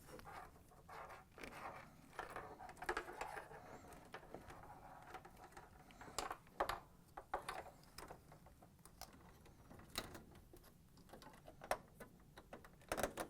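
Faint, scattered clicks and light rubbing of plastic parts being handled and snapped into place on a washer's control panel, with a few sharper clicks toward the second half.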